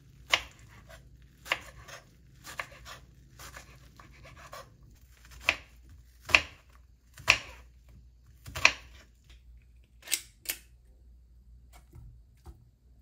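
Kitchen knife chopping enoki mushrooms on a wooden cutting board: a run of sharp knocks, roughly one a second, that stop about two seconds before the end.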